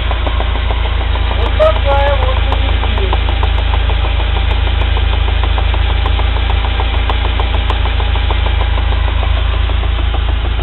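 UAZ Patriot driveshaft knocking in a fast, even rhythm over the running engine as the vehicle creeps in first gear: the sign of play in a worn universal joint cross. A short squeak about two seconds in.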